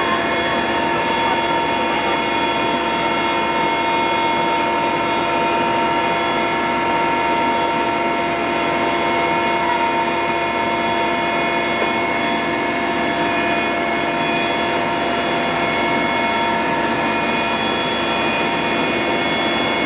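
Aircraft engine droning steadily in flight, a constant hum with several steady tones over a rushing noise.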